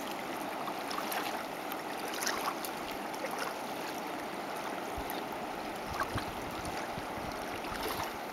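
Colorado River flowing: a steady rushing of water. A few faint clicks and some low bumps come through it, mostly in the second half.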